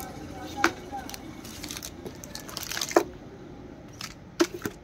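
Wrapped chocolate bars being handled and set down on a pile: crinkling foil and plastic wrappers with several sharp taps, the loudest about half a second and three seconds in.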